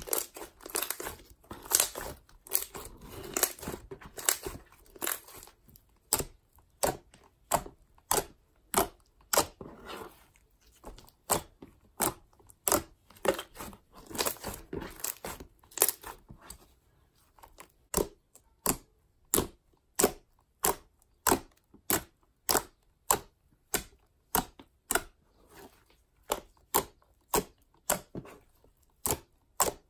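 Clay slime made from play dough being worked by hand, with sticky squishing and crackling as it is kneaded and stretched. From about six seconds in it gives a steady run of sharp pops, roughly two a second, as fingers press and poke into it.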